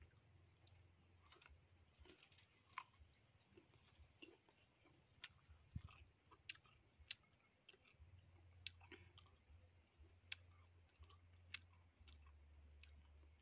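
Faint, irregular sharp clicks and small snaps as a small green fruit is picked apart by hand and eaten, over a faint low rumble.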